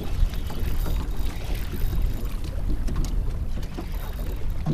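Wind rumbling on the microphone, with water lapping against a small boat's hull.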